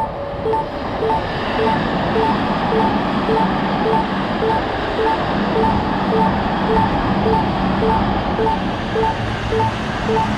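Japanese level-crossing warning bell dinging evenly, about two dings a second. From about a second in, a Seibu Railway train runs through the crossing with a steady rumble of wheels on rails.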